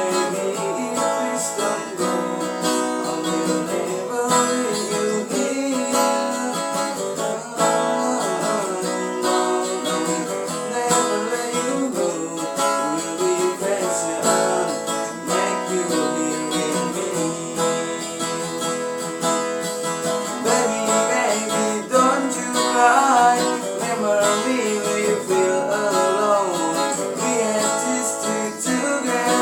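Music: acoustic guitar strummed through a song, with a melody line that bends and wavers in pitch in the last several seconds.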